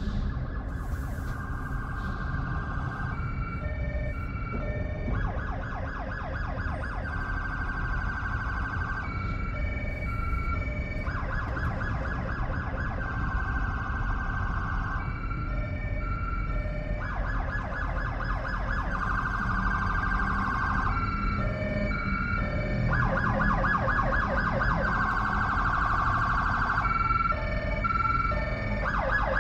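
Electronic emergency-vehicle siren. It alternates a rapid warble with a steadier tone and short beeps, the cycle repeating about every six seconds, over a steady low road rumble.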